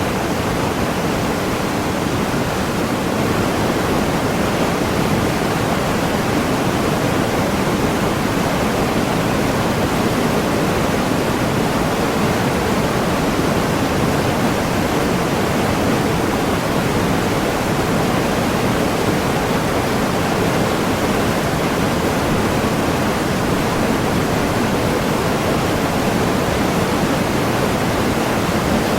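Waterfall in a tropical forest: falling water making a steady, dense rushing that never changes.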